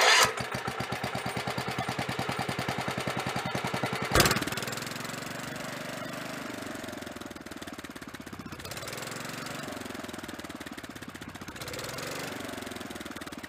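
Kohler K181 8 hp single-cylinder engine running with a rapid, even firing beat, and a sharp bang about four seconds in. After the bang it runs quieter, its speed rising and falling.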